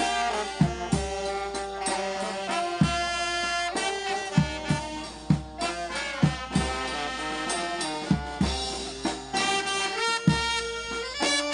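Brass band playing: saxophones and trumpet carry a melody over a large brass bass horn, with repeated bass drum and snare strikes.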